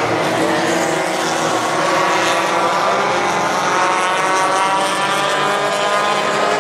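Several race cars' engines running at speed around an oval track, overlapping, their pitch sliding up and down as the cars pass.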